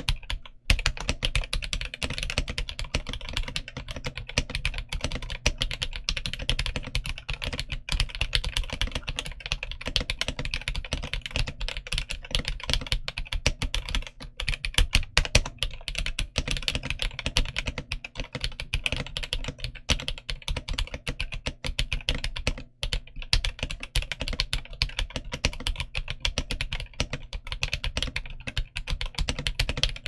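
Fast, continuous typing on a Womier V-K66 mechanical keyboard with Jixian Red switches and PBT Cherry-profile keycaps: a dense run of key clacks. There are brief pauses just after the start and about three quarters of the way through.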